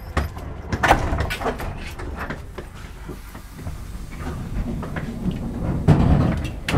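Passenger train running, heard from inside the carriage: a steady low rumble with scattered knocks and clicks, swelling louder about six seconds in.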